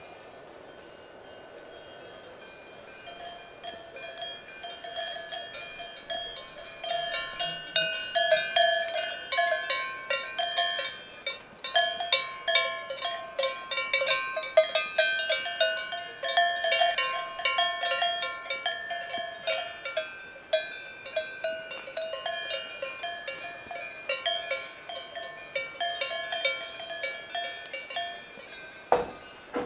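Bells hung on the necks of grazing cows clanking irregularly as the cattle move, several ringing tones at once, faint at first and louder from a few seconds in. A single sharp knock near the end.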